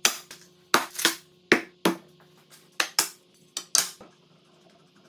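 A series of sharp clinks and knocks, about ten of them, mostly in quick pairs at irregular intervals, stopping about four seconds in. Typical of hardware and tools being handled while fitting a table base.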